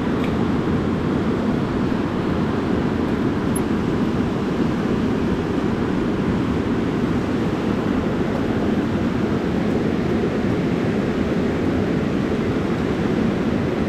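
Steady rushing roar of water pouring over a waterfall, unbroken and even throughout.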